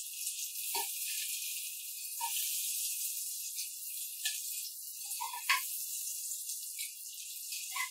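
Onions and green chillies sizzling in hot oil and butter in a pressure cooker, a steady hiss, while a metal ladle stirs them and clinks against the pot a handful of times, loudest about five and a half seconds in.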